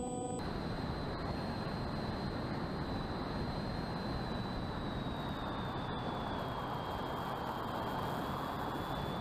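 Electric RC plane in flight, recorded onboard: a steady rush of wind and propeller noise with a thin high motor whine that drops slightly in pitch about five seconds in, then holds.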